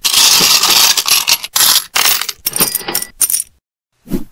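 A shower of coins clinking and jingling, which cuts off suddenly about three and a half seconds in. A brief low vocal sound follows near the end.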